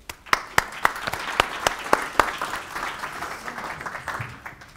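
Audience applauding, with a few sharp nearby claps standing out over the first couple of seconds, then dying away near the end.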